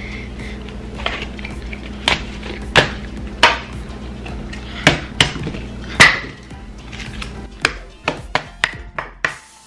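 A game disc chopping at an apple on a stone countertop: about a dozen sharp, irregular knocks, coming faster near the end, over background music.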